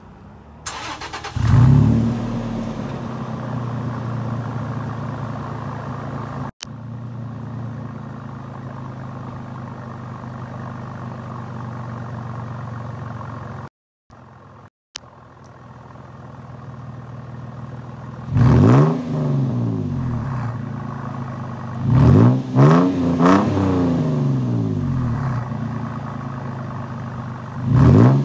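A 2015 Toyota Tacoma's 4.0L V6, breathing through dual Porter mufflers, starts about a second in, flares up and settles into a steady idle. The sound breaks off briefly about halfway through. In the last third the engine is revved in several quick blips, each rising and falling back to idle.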